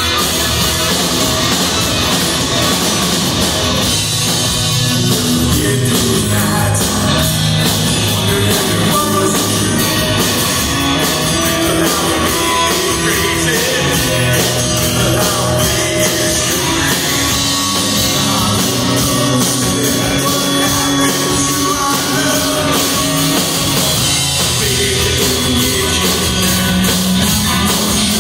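Live hard rock band playing loud and steady: electric guitars over bass and drums.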